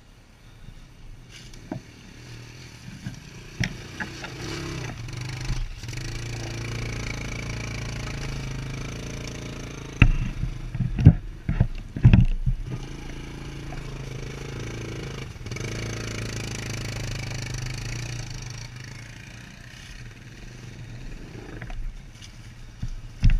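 ATV engine running close by on a trail ride, building over the first few seconds, holding steady, then easing off briefly near the end. A burst of loud knocks and clatter comes just before the middle.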